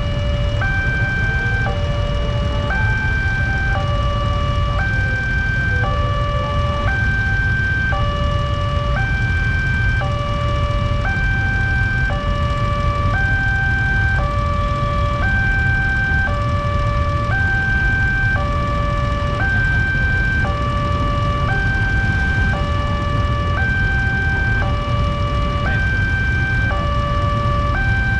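Railway level-crossing electronic warning alarm sounding a steady hi-lo two-tone pattern, alternating high and low tones each held for under a second, which signals that the barrier is down for a train. A low rumble of idling motorcycle engines lies underneath.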